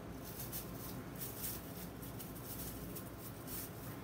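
Thin plastic grocery bag crinkling and rustling as a stiff plastic burnisher pushes and scrapes it down between a helmet's foam liner and its shell. The scratches come irregularly, several to the second.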